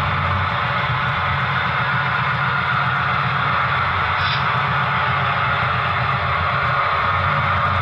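HO-scale Broadway Limited Paragon 4 EMD F7 diesel sound units running their prime-mover sound steadily, with a fluttering low rumble played through the Rolling Thunder bass receiver. The lead and trailing units are both on Rolling Thunder channel 1, so their transmitters fight, which is what makes the sound break up and distort.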